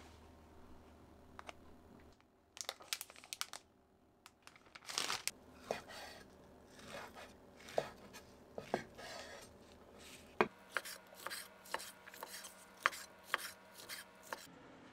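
Kitchen knife chopping food on a cutting board: a few scattered cuts, then a steady run of chops at about two to three a second in the second half.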